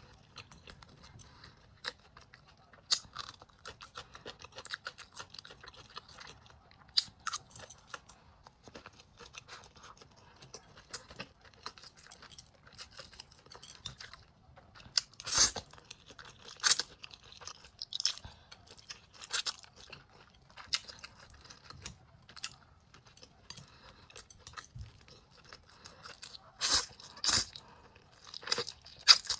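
A person chewing and eating close to the microphone: irregular mouth clicks and bites, with a few louder ones about halfway through and near the end.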